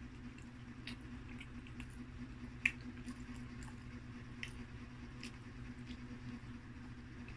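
A person chewing pizza: scattered wet mouth clicks and smacks, the sharpest about two and a half seconds in, over a steady low hum.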